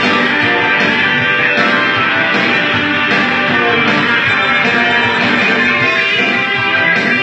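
Live rock and roll band playing loudly, with electric guitar to the fore.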